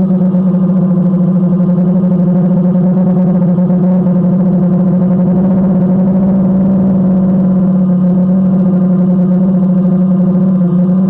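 DJI Phantom quadcopter's electric motors and propellers humming steadily in flight, heard loud and close from a camera mounted on the drone, at one even pitch with a slight wobble near the end.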